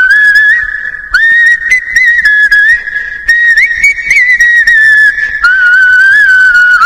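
A whistled tune as background music: one high melody line with small slides between the notes, in short phrases that restart about a second in, around three and a half seconds in and around five and a half seconds in.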